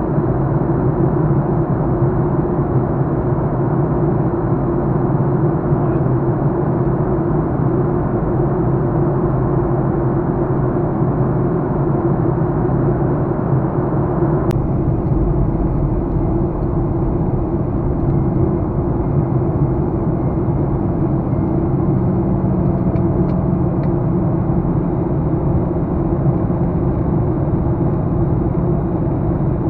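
Steady jet airliner cabin noise in flight: the engines' low rumble and hum under the hiss of air rushing past the fuselage. A single sharp click comes about halfway through, after which the hiss is slightly duller.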